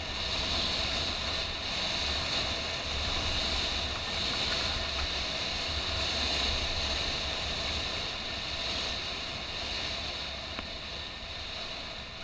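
Downhill skiing heard from a body-worn camera: wind rushing over the microphone with low buffeting, mixed with skis sliding on snow, a steady rush that eases slightly near the end.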